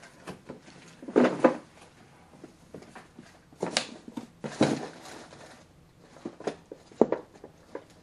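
Cards and packaging being handled on a tabletop: scattered clicks, knocks and rustles in several short clusters, loudest a little over a second in.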